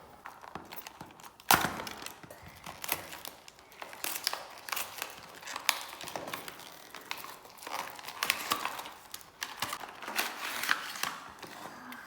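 A product box being opened and unpacked by hand: irregular cardboard knocks, scraping and plastic-wrap crinkling, with one sharp thud about a second and a half in.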